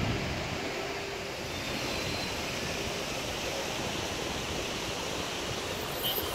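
Steady outdoor city ambience: an even hiss with no distinct events.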